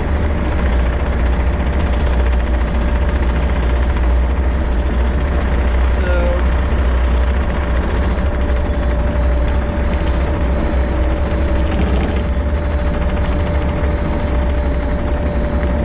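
Engine running steadily: a loud, even low drone with a constant whine over it.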